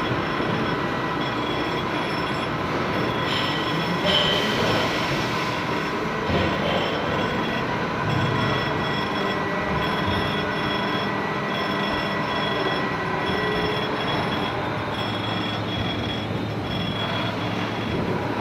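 Surface grinder running, its grinding wheel working a job: a steady machine noise with held high whining tones, one of which comes and goes in short, regular pulses.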